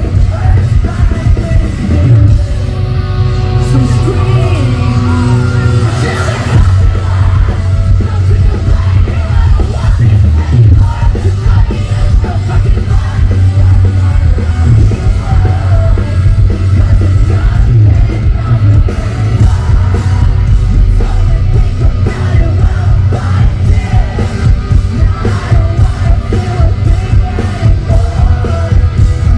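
A post-hardcore rock band playing live and loud through a concert PA: distorted guitars, bass and drums, with sung and yelled vocals.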